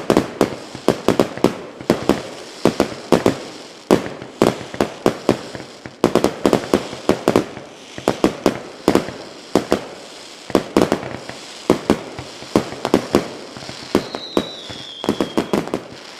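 Fireworks going off in a rapid, irregular barrage of sharp bangs and crackles, several a second, with a brief falling whistle about fourteen seconds in.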